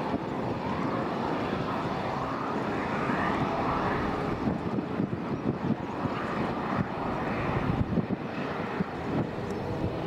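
Aircraft engines running: a steady rumble with a higher whine that rises and falls.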